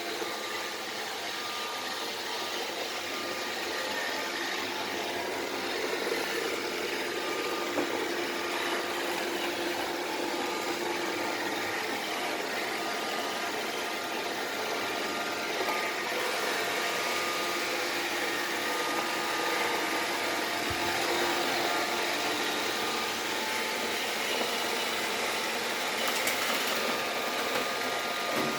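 Vacuum cleaner running: a steady motor whir and suction noise with a faint whine.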